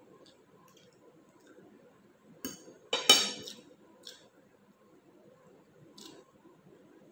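Metal fork clinking against a plate twice about halfway through, the second strike louder with a short ring, followed by a few faint clicks.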